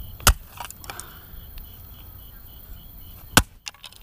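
Two hard blows of an axe-sledgehammer striking a Casio fx-115ES Plus calculator, about three seconds apart, each followed by a few lighter clicks. The blows are smashing the calculator.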